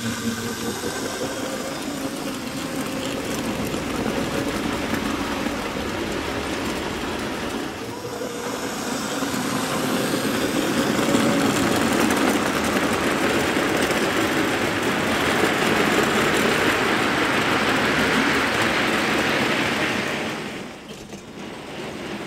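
OO-gauge Hornby Black 9F model steam locomotive with a tender-mounted motor running, its motor humming and the wheels of its long train of coal wagons rattling over the track joints. The noise grows louder past the middle as the train passes close, then dips sharply near the end.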